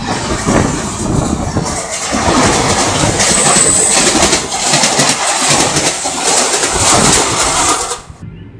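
Passenger train coaches passing at speed close by: loud rushing noise with irregular wheel clatter, and a brief high steady squeal about three seconds in. The sound cuts off abruptly near the end.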